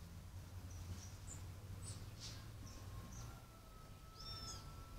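Faint, scattered high chirps of birds, with a short arching call about four seconds in and a thin steady whistle-like tone that starts about three seconds in, over a low steady hum.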